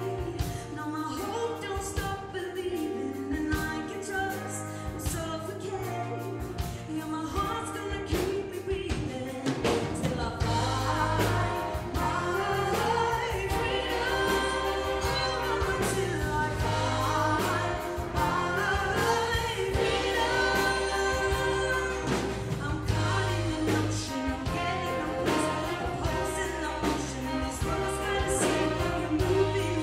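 Female lead singer with a small backing choir and a live big band (saxophones, brass, drums, bass) performing a song. The band and voices swell fuller and louder about ten seconds in.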